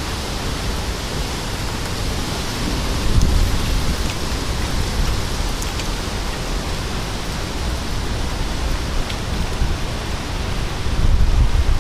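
Steady rush of rain and wind in a severe thunderstorm, with low rumbling surges about three seconds in and again near the end.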